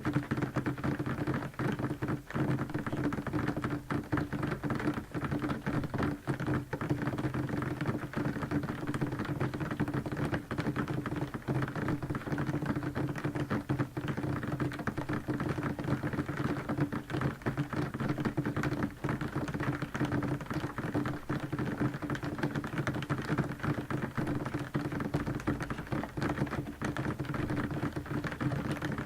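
Heavy downpour heard from indoors, rain drumming steadily on a window pane as a dense patter of countless small taps.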